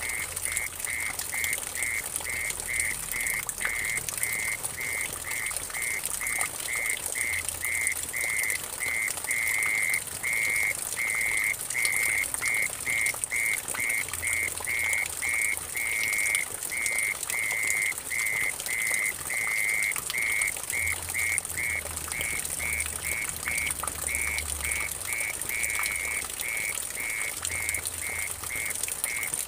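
Mole cricket (orong-orong) singing a high, even-pitched trill broken into short regular pulses, about two or three a second, now and then running into longer notes. Under it, water trickling and splashing into a muddy puddle, with a steady high hiss.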